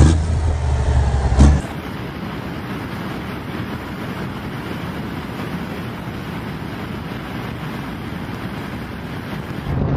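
A custom Peterbilt truck's diesel engine revving hard, loudest in a burst about a second and a half in, then cutting off abruptly. After that comes a steady rushing wind and road noise of the truck cruising on a highway.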